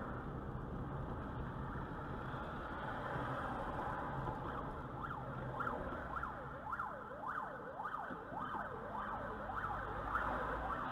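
Fire engine siren sounding in a fast up-and-down yelp, coming in about halfway through over the steady road and engine noise of the car that carries the dashcam.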